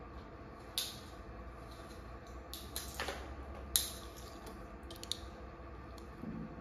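A few separate light clicks and taps of metal alligator clamps on leads being handled, with a clamp closing onto a battery terminal near the end.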